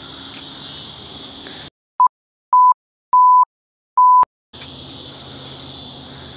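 Steady chorus of summer insects, cut off about a second and a half in by dead silence in which four loud censor bleeps sound, all at one pitch, from very short to about a third of a second long. The insect chorus comes back near the end.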